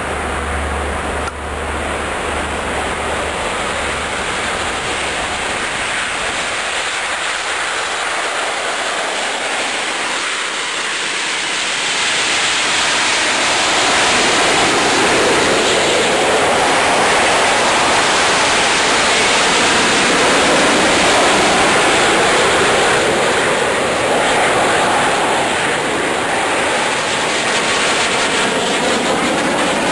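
Jet engines of a formation of military jets departing: a steady noise that grows louder from about halfway through as they pass, with a slowly sweeping, phasing sound at its loudest.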